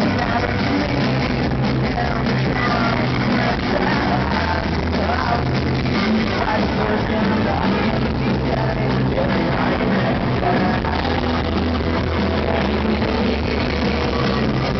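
Live rock band playing loudly through a festival PA, with electric guitar, bass and drums, heard from the audience. No words are sung.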